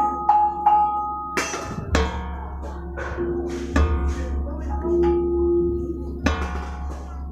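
Gamelan bronze percussion struck with mallets: ringing, overlapping pitched tones, with two heavier strikes about a second and a half in and near the end.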